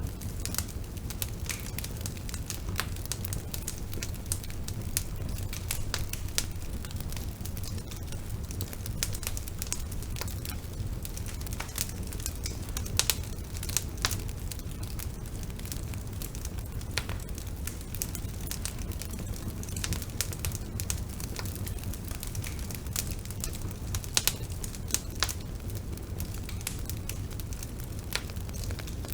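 Bonfire burning: a steady low rumble of flames with irregular sharp crackles and pops from the wood, a few louder pops scattered through.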